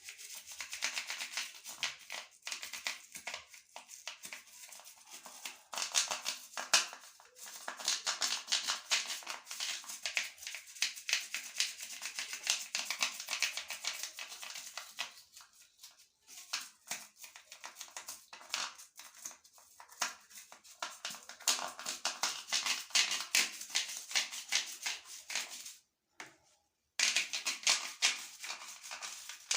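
Bristle brush scrubbing the edges of a plastic electric shower head part to get dirt off, a fast, irregular scratchy rasping with a one-second break near the end.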